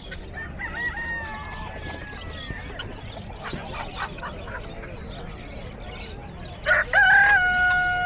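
A rooster crowing: a fainter crow early on, then one loud, long crow starting near the end, held steady on one pitch.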